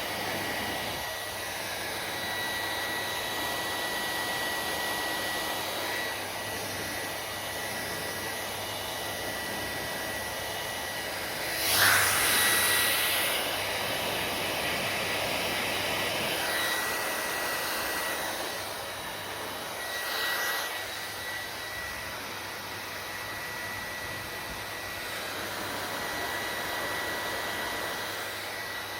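Hair dryer running with a steady airy rush and a thin high whine; the rush swells louder about twelve seconds in and briefly again around twenty seconds.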